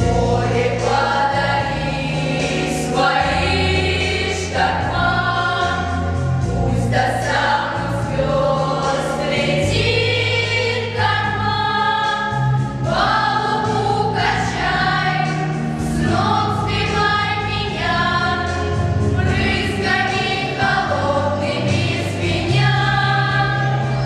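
Girls' vocal ensemble singing a song together over an instrumental accompaniment with a steady bass line.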